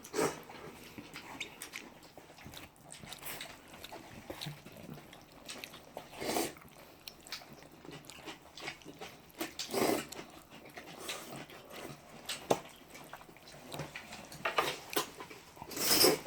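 People slurping and chewing jajangmyeon noodles, with short slurps every few seconds against a quiet room.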